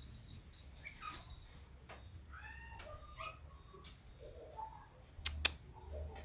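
A kitten mewing a few short, arched cries, with two sharp knocks close together near the end.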